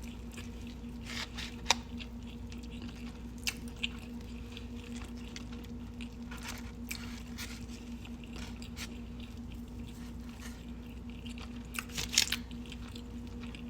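A person chewing mouthfuls of a burger, with wet mouth clicks and smacks scattered through and a few sharper ones about two seconds in, near the middle and near the end, over a steady low hum.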